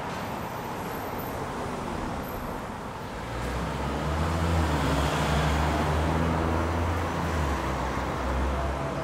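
Street traffic with cars passing. About three seconds in it gets louder, with a low steady hum, as a Škoda 14TrSF electric trolleybus approaches along with passing cars.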